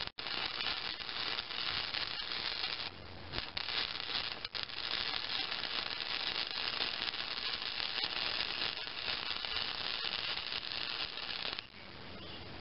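Stick welder's arc crackling steadily as a bead is run on the steel deck, dipping briefly about three seconds in and cutting off about a second before the end.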